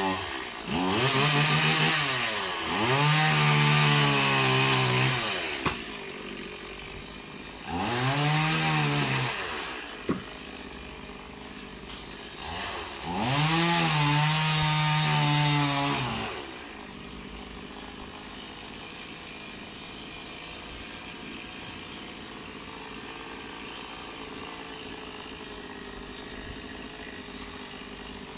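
Two-stroke chainsaw cutting at the crown of a coconut palm, revving up and down in about five bursts of one to three seconds over the first half, then dropping back to a steady idle.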